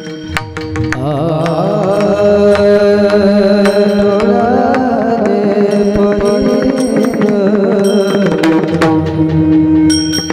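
A devotional abhang being sung: a singer holds long, wavering notes from about a second in until near the end. Underneath are a steady drone and sharp percussion strokes.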